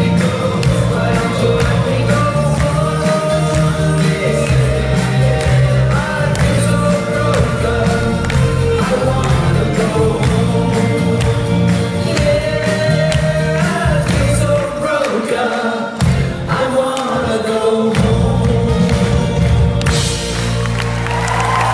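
Live pop band, with acoustic and electric guitars, bass guitar, drums and keyboards, accompanying a woman singing lead with backing vocals. Near the end, audience applause starts over the closing of the song.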